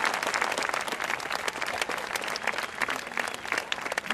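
Large audience applauding, many people clapping at once, the applause slowly dying down.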